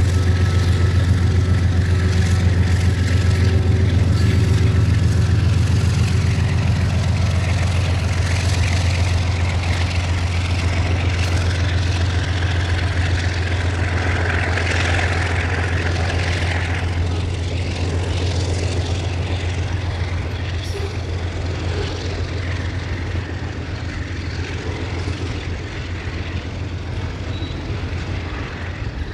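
Freight train led by GE diesel-electric locomotives passing with a steady low diesel drone, then tank-container wagons rolling by. The sound slowly fades as the train pulls away.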